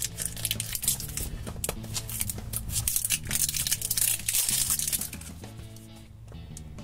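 Plastic seal band crinkling and tearing as it is peeled off a Lalaloopsy Tinies plastic capsule, over steady background music. The crinkling thins out about five seconds in.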